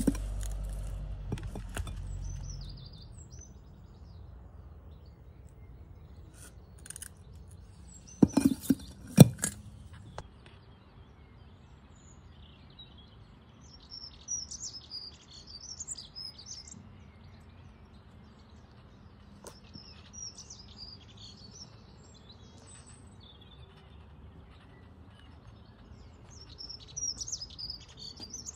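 Small birds chirping in short, high bursts several times, over a faint background. A low rumble fills the first couple of seconds, and two or three sharp knocks about eight to nine seconds in are the loudest sounds.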